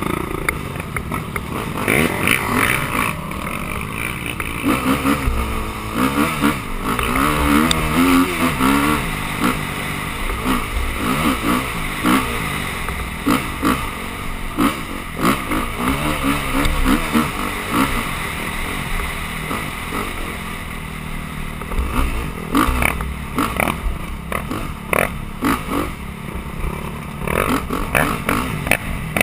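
Dirt bike engine revving up and down as the bike rides a rough trail, its pitch rising and falling with the throttle, with frequent short knocks and rattles from the bumps.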